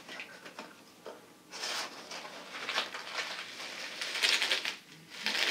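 A cardboard box and its packaging being handled and opened by hand: irregular rustling, scraping and crinkling with small knocks, busier from about a second and a half in.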